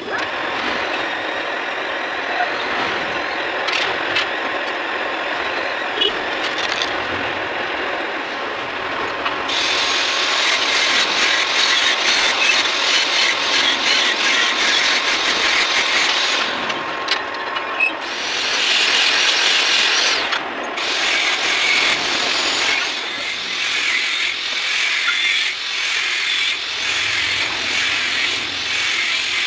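Metal lathe running with a steel arbor shaft spinning in the chuck, making a harsh, continuous cutting and scraping noise as the shaft is turned. The noise grows louder and brighter about a third of the way in and breaks off briefly twice past the middle.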